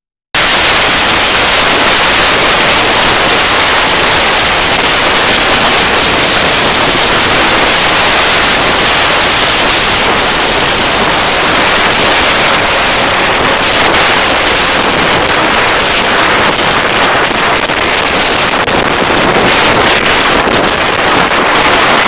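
Loud wind noise rushing and buffeting over a helmet-mounted camera's microphone on a moving motorcycle. It cuts in suddenly just after the start and stays even, with no engine note standing out.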